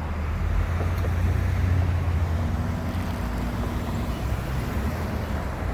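Steady road traffic noise, a continuous low rumble of passing vehicles with no breaks.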